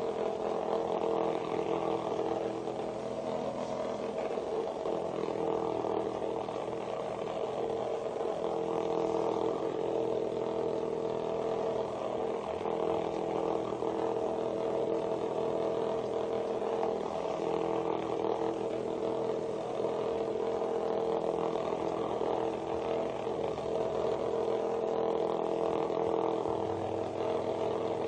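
Several small vibrating bug toys, cheap knock-offs of Hexbug Nano, buzzing steadily as their tiny vibration motors run. The hum holds a few steady pitches and does not let up.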